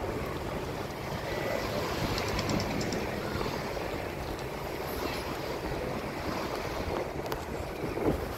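Car driving slowly along a street: steady low road and engine noise heard from inside the car.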